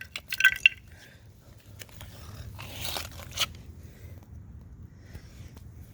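Hard plastic casing of a small electrical gadget cracking and crunching as it is broken apart: a few sharp cracks just after the start, then a longer crunch about three seconds in.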